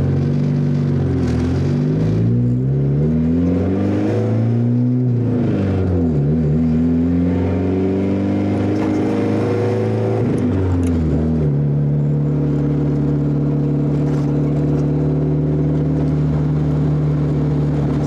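Honda Civic four-cylinder engine heard from inside the cabin under hard acceleration through the gears: the revs climb, then drop back sharply at each of several gear changes, and then settle into a steady drone about two-thirds of the way through.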